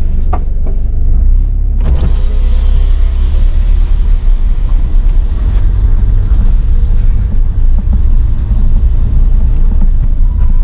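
Car cabin noise while driving: a steady low engine and road rumble, with a hiss that swells about two seconds in and fades out around seven seconds.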